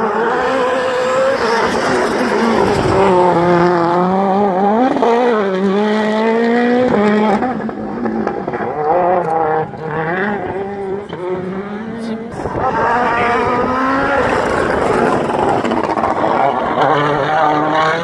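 World Rally Car's turbocharged four-cylinder engine at full throttle through a series of bends, its pitch rising and falling with hard gear changes, braking and acceleration. The engine note drops back about halfway through, then climbs again in repeated rising revs near the end.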